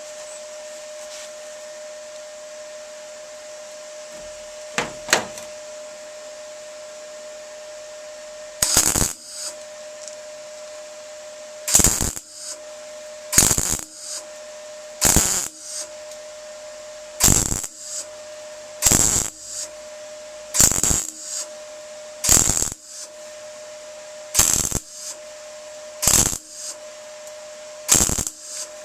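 Welder laying a series of short tack welds on thin van body panel steel: eleven brief crackling bursts about every second and a half to two seconds, each a quick tack, over a steady hum. The welds are kept short and spaced apart so the panel does not warp.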